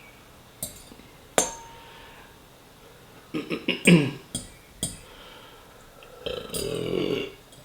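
Eating sounds: a fork clinks against the plate a few times, one clink ringing briefly, with short mouth sounds in the middle and a longer throaty sound near the end.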